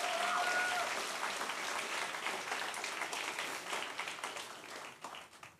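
Audience applauding a finished speech, dense clapping with a brief thin whistle in the first second, dying away near the end.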